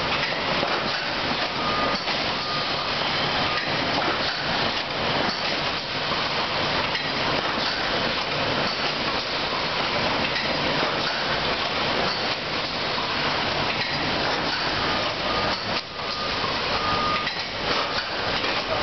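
Packaging-line machinery around a Hartness 835 drop packer running: continuous dense clatter and rattling with many sharp clicks, and a few short high tones now and then.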